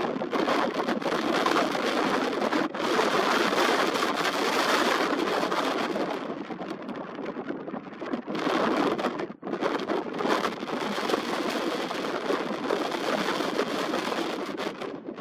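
Wind buffeting the built-in microphone of a Nikon Coolpix P1000 camera: a loud, rough rush that surges and eases, dropping out sharply for an instant twice.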